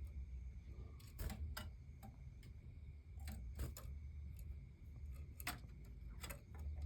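Sparse, irregular light clicks and taps from a pet canary moving about its cage, over a low steady hum.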